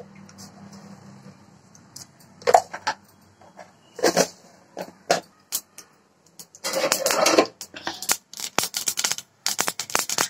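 Mustard seeds spluttering in hot oil in a pan: a few scattered pops at first, then a dense crackling from about two-thirds of the way in. The popping is the sign that the oil is hot enough for the tempering.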